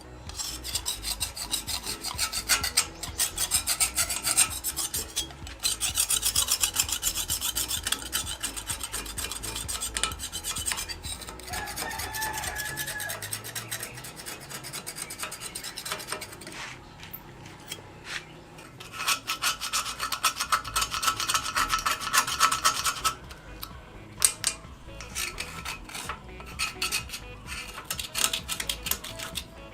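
Metal being filed by hand: rapid back-and-forth rasping strokes, in several runs of a few seconds broken by short pauses.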